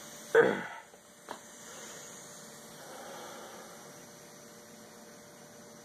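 Faint steady hiss of the last steam escaping from an electric pressure cooker's open release valve, fading slowly, with a short knock about half a second in and a faint tick a second later.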